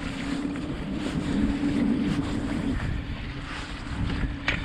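A small inflatable boat's motor running steadily at low speed, easing off a little past halfway, under wind rumbling on the microphone. A short light knock near the end.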